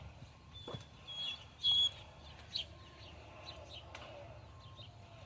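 Birds calling: a few short high whistled notes, the loudest a couple of seconds in, followed by fainter quick chirps.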